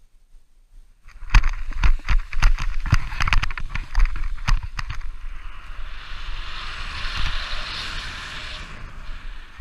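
Wind rumbling on a camera microphone, with a quick run of close knocks and rustling handling noise for the first few seconds, then a steady rushing hiss.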